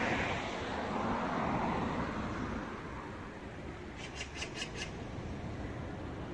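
Street traffic noise: a passing vehicle fades away over the first few seconds, leaving a steady low traffic hum. About four seconds in there is a quick run of about five short, high-pitched ticks.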